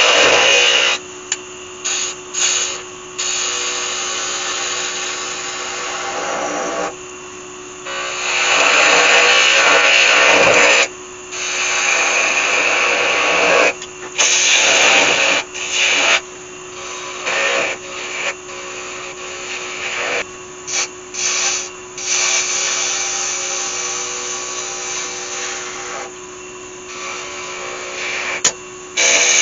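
A wood lathe spins a sycamore spindle while a turning chisel cuts it. A hissing, scraping cut comes and goes in bursts of one to several seconds as the tool is pressed in and eased off, over the lathe's steady motor hum.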